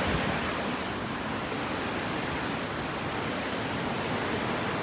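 Steady rush of water from the Burney Falls waterfall, an even hiss with no breaks.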